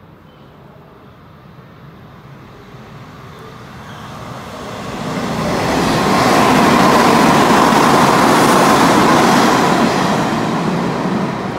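Hanshin 8000 series electric train running through the station at speed: the rumble of wheels on rail builds as it approaches, is loudest about halfway in as the cars rush past the platform, and begins to fade near the end.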